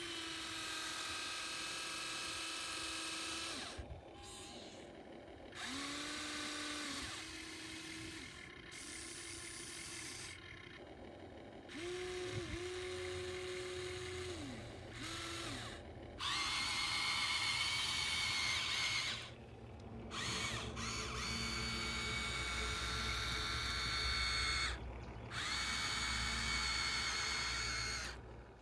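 Electric motors of a radio-controlled model excavator whining in repeated spells of a few seconds as its functions are worked, each spell rising in pitch as it starts and dropping as it stops. From about halfway through the spells are louder and carry a low hum.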